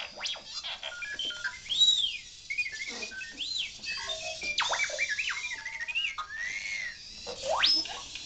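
Homemade R2-D2-style robot playing droid sounds through its small speaker: quick electronic chirps and blips mixed with rising and falling whistles, including a few long swoops.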